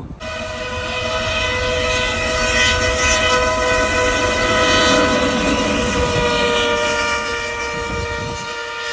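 A long, steady chord of several held tones, like a horn or drone, that starts suddenly, swells to its loudest about five seconds in, then slowly fades.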